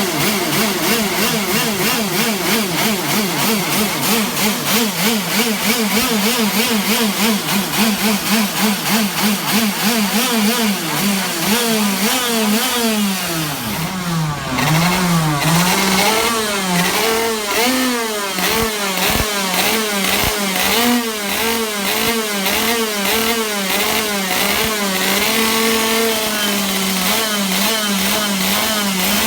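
Two-stroke racing kart engine warming up, its throttle blipped over and over so the revs rise and fall in a fast, even rhythm. About halfway through the revs drop low, then pick up again in slower, uneven surges.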